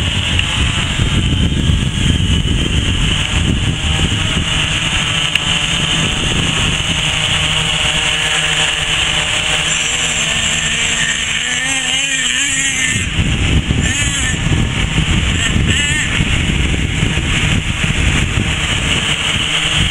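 Radio-controlled model motors running steady and loud, a high-pitched drone over gusty wind rumble on the microphone. Between about ten and thirteen seconds in, a whine wavers up and down in pitch.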